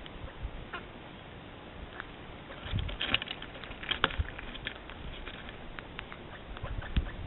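Birds at a bird table: a run of short taps and scratches, thickest about three to four seconds in.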